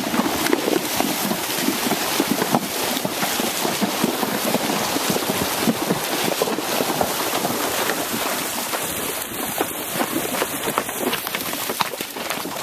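Horses' hooves splashing steadily through shallow water, a dense run of irregular splashes as several horses wade along a flooded track.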